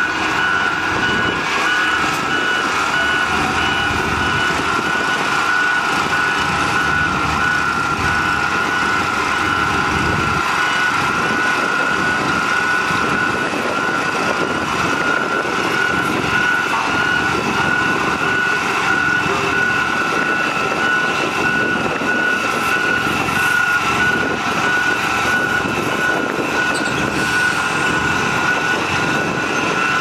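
Heavy road construction machine's engine running steadily, with a high-pitched reversing alarm beeping over it.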